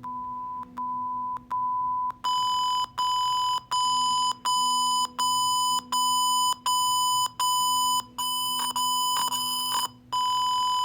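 Electronic beeping: a steady high beep repeats about every three-quarters of a second. About two seconds in it turns louder and harsher, and near the end it holds as one unbroken tone.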